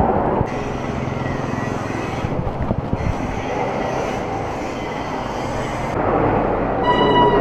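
Steady road and wind noise of a bicycle ride along traffic, with a short high beep near the end.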